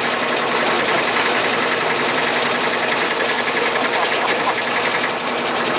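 A small engine running steadily at high speed, with a fast, even beat.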